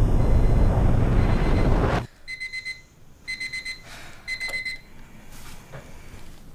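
A loud low rumble cuts off abruptly about two seconds in. It gives way to a bedside alarm clock beeping in three short groups of rapid beeps, about a second apart, which stop after the third.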